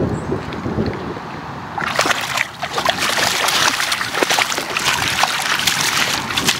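A dog pawing and stepping in shallow river water, with a rapid run of splashes starting about two seconds in.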